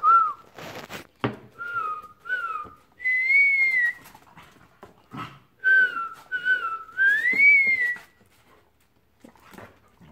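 A person whistling a short call, twice: two quick notes and then a longer note that rises and falls. Knocks and scuffles come in between.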